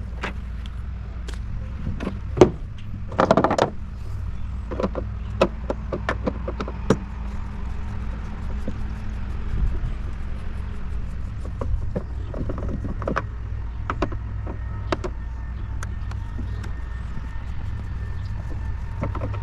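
Scattered clicks, taps and short rattles of a TV being taken apart by hand with a screwdriver, over a steady low hum.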